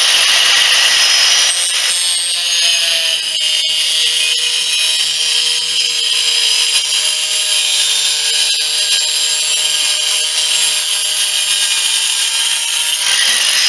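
Angle grinder fitted with a dull toothed wood-cutting disc, running at full speed and sawing into wood from about a second and a half in until near the end. The blunt disc cuts poorly.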